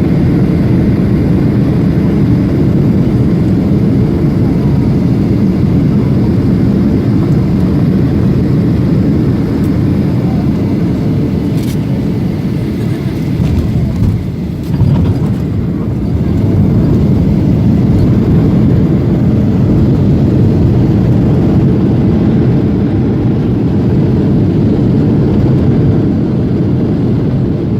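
Boeing 737-800 engine and airflow noise heard inside the cabin, a steady low rumble around landing and rollout. It eases briefly about halfway through, and there is one sharp click a little before that.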